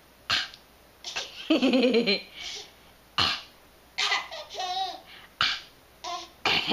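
Pet parrot making mimicked coughs, short sharp hacks roughly once a second, with a laugh-like call and a rapidly warbling call between them.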